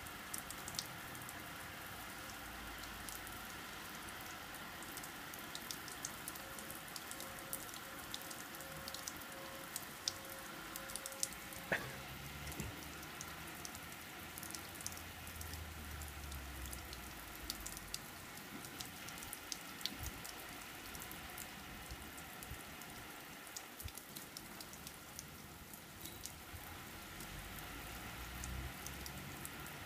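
A spray of water pattering steadily on a corrugated roof sheet and a mud-and-bottle wall, like heavy rain, with many small drop ticks.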